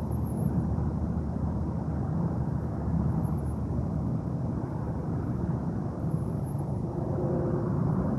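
Steady low rumbling noise, with faint short high chirps a few times.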